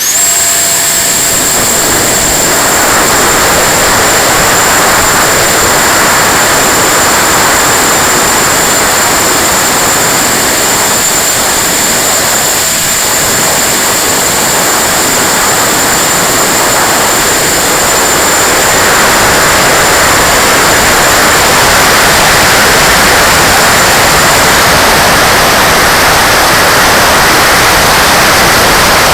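A 90 mm electric ducted fan on an RC jet gives a high, steady whine over a heavy rush of wind past the on-board camera. The whine fades out about 25 seconds in, leaving only the rush of air.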